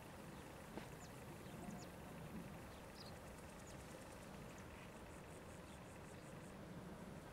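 Faint, steady low rumble of a distant electric train passing, with a few small bird chirps and a short run of fast high ticking over it.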